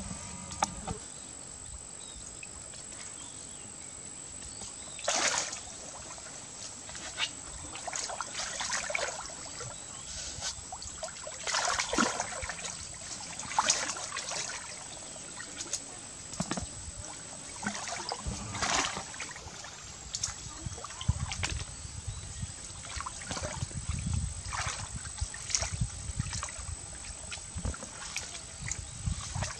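Shallow stream water sloshing and splashing in irregular bursts as someone wades and gropes in it by hand, over a steady trickle.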